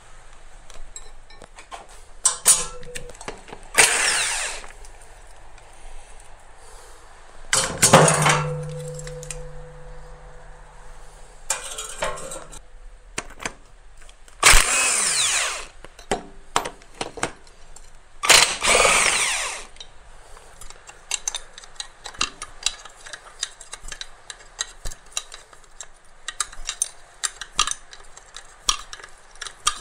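Cordless power wrench spinning out bolts during an engine teardown, in four bursts of about a second each. Between the bursts come sharp metallic clicks and knocks from parts and hand tools, and a low hum holds for a few seconds after the second burst.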